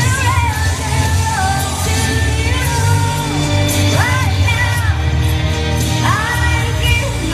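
A woman singing a pop ballad over a backing track, with long held notes and upward swoops in the melody over a steady bass line.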